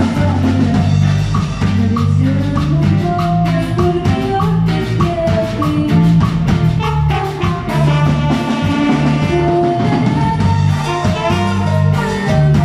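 Instrumental band music: a bass line and drums with percussion keeping a steady beat, plus sustained instrument notes above, without singing.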